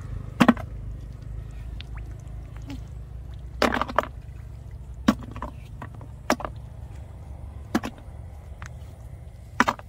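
Short, sharp splashes and clicks, about seven of them spaced irregularly, as mud snails are plucked by hand out of shallow muddy water. A steady low rumble runs underneath.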